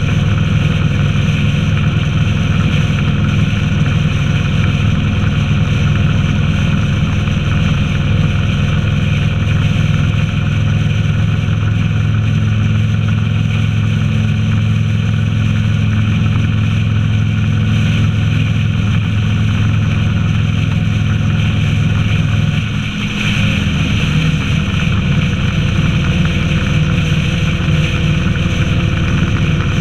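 Honda VTX 1300's V-twin engine running steadily at cruising speed, with wind and road noise. About three-quarters of the way through, the engine note dips briefly, then picks up again.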